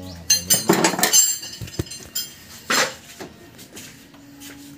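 Metal-on-metal clinks and clatter of tools and engine parts being handled while a timing belt is fitted: a quick run of clinks in the first second, a sharp clink near three seconds, then scattered light clicks.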